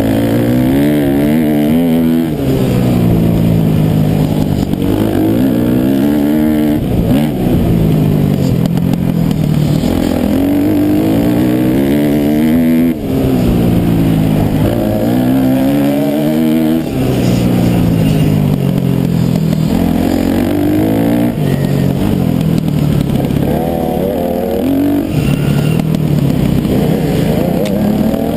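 Dirt bike engine heard from the rider's helmet, revving up and dropping in pitch again and again as the rider accelerates and shifts through the gears.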